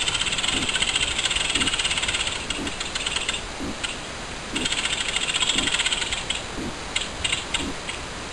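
Rapid mechanical ratcheting clicks in two long runs, the second starting about halfway through, then a few short bursts near the end.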